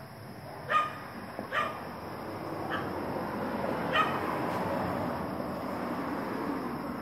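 A dog barking four times in short single barks, the first the loudest. A steady background noise builds up behind the later barks.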